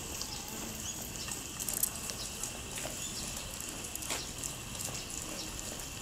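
Steady high-pitched outdoor hiss with a few short, sharp chirps scattered through it.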